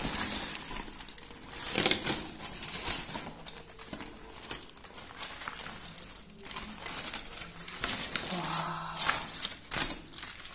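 Aluminium foil and a dry, cooked leaf wrapping crinkling and rustling in irregular crackles as hands open the parcel, with a brief low voice-like sound about eight seconds in.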